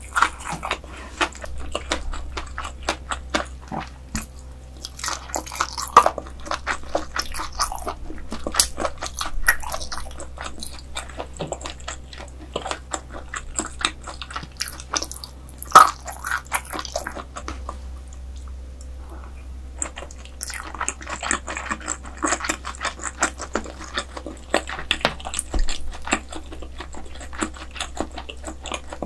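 Close-miked eating sounds: a person biting and chewing croaker, with wet smacking and clicking mouth sounds. Two sharper clicks stand out, about six and sixteen seconds in.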